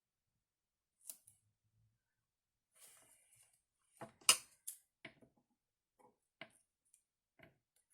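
Scissors snipping through a strip of paper: a handful of short, crisp snips at uneven intervals, the loudest a little past four seconds in.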